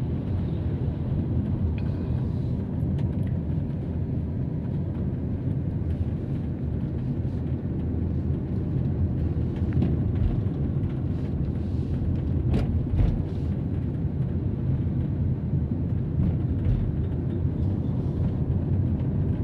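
Steady low rumble of a car driving, engine and tyre noise heard inside the cabin, with a few brief clicks past the middle.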